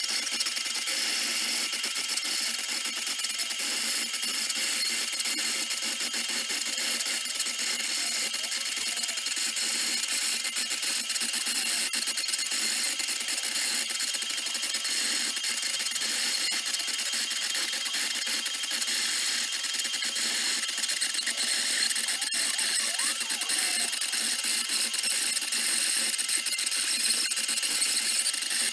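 CNC engraver's high-speed spindle running with a fine engraving bit cutting into a clear plastic plaque: a steady high-pitched whine with scratchy cutting noise.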